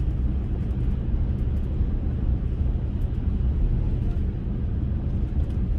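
Passenger train running, heard from inside the carriage: a steady low rumble with a few faint clicks.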